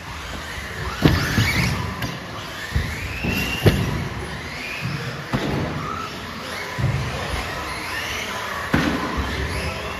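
Electric radio-controlled race cars running on a carpet track: several high motor whines rising and falling as the cars speed up and slow down, over a low rumble. Several sharp knocks come through, the loudest about a second in and near the middle.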